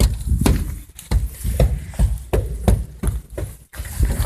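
Repeated dull thuds of fists banging on a wall, irregular at about two or three a second.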